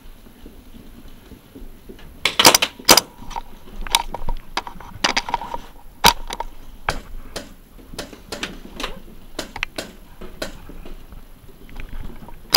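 Paintball markers firing: a quick string of loud, sharp shots a little over two seconds in, followed by lighter, irregular pops and clicks every half second or so.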